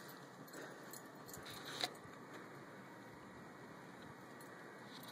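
Faint steady hiss with a few soft, short clinks between one and two seconds in.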